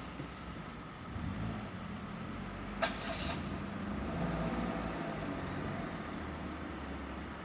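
Road traffic passing, with engine hum that swells twice, and one brief sharp high-pitched sound about three seconds in.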